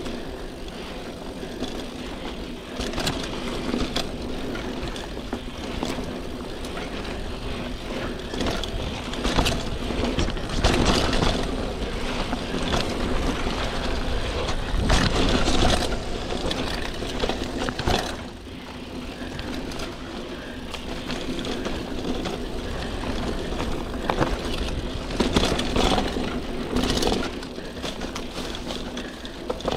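Trek Marlin 7 hardtail mountain bike ridden along a dirt trail: tyres rolling over dirt, with frequent rattles and knocks from the bike over bumps, louder in surges on rougher or faster stretches.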